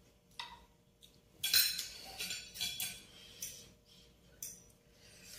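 Metal spoons clinking against ceramic bowls and plates while eating: a string of short, light clinks, the loudest about a second and a half in and at the end.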